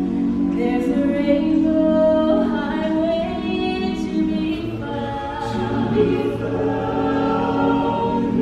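A choir singing in harmony, the voices holding long chords and moving to new notes every second or so.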